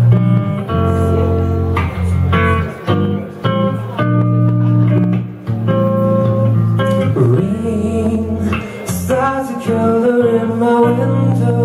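Solo guitar played flat across the lap, a run of picked notes ringing on, with a man singing over it partway through.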